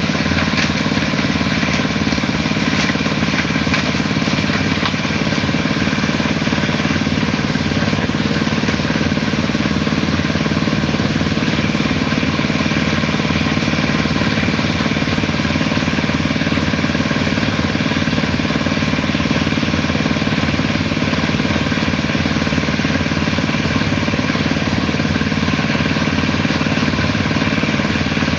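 Engine of a small portable concrete mixer running steadily at a constant speed.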